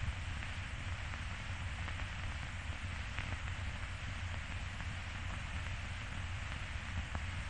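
Steady hiss and low hum of an old film's soundtrack, with a couple of faint crackles.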